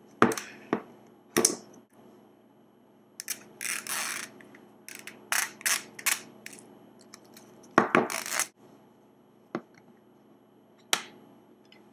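Clear plastic packaging of an Apple Remote being pried and pulled open by hand: a string of sharp plastic clicks and snaps with bouts of crinkling in between, the loudest snap a little past the middle.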